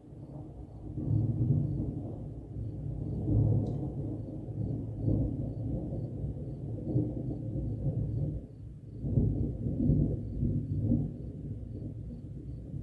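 Long rolling thunder, a deep rumble that swells and ebbs several times. It is loudest about a second and a half in, around three and a half seconds, and again around nine to ten seconds.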